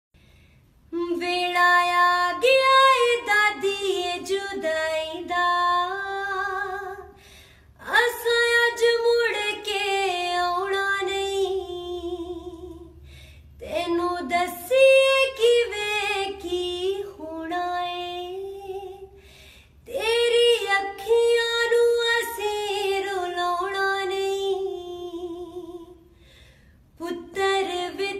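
A woman singing solo without accompaniment: four long melodic phrases with short pauses for breath between them, her held notes wavering, and a fifth phrase beginning near the end.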